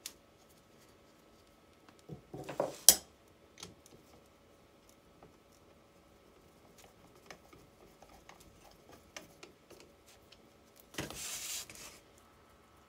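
Metal parts of a starter motor and its solenoid being handled and fitted together: a short clatter ending in one sharp metallic click about three seconds in, then faint ticks as a nut driver turns a fastener, and a brief scraping rustle near the end.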